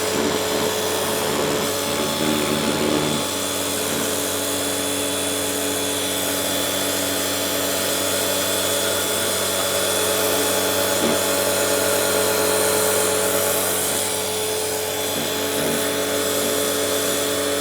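DeWalt DCMPW1600N 18-volt cordless pressure washer running steadily: a whine from its battery-driven pump motor over the hiss of the water jet spraying onto coarse granite.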